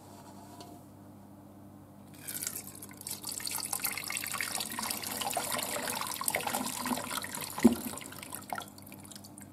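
Cooking liquid from beef short ribs poured through the perforated strainer lid of a gravy fat separator: a splashing, trickling pour that starts about two seconds in and tapers off near the end, with one sharp knock shortly before it stops.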